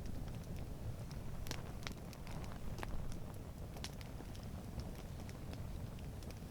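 Wood campfire crackling, with sharp pops at irregular moments over a low steady rumble.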